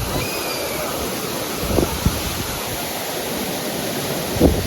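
Loud, steady rush of a large waterfall, Manthoka Waterfall, heard from close by, with wind buffeting the microphone in a few short low thumps.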